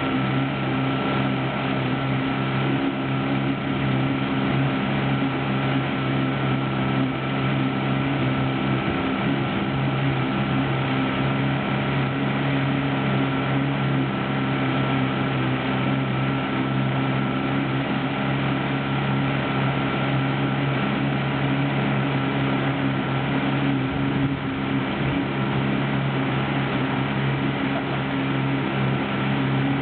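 Motorboat engine running steadily at speed, a constant drone that holds its pitch, over the rush of water along the hull.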